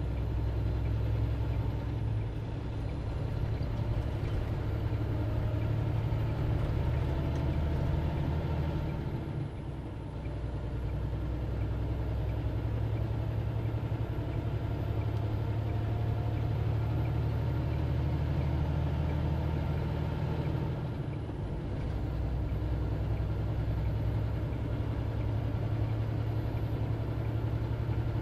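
Semi truck's diesel engine heard from inside the cab, pulling steadily as the truck accelerates up to highway speed. The drone drops briefly twice, about a third of the way in and again about two-thirds in, as the truck shifts up a gear.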